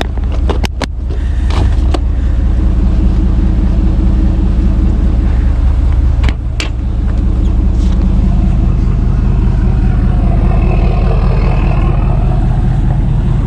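A vehicle engine idling steadily close by. A few short sharp clicks or clanks come just after the start and again about six seconds in.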